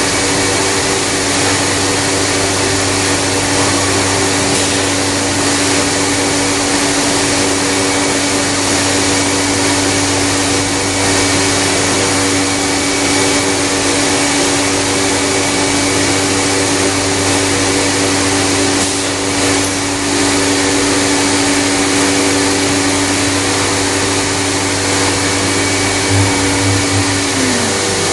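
CMS CNC machining centre running: a steady whine over a loud rushing noise. The whine drops in pitch near the end as the machine winds down.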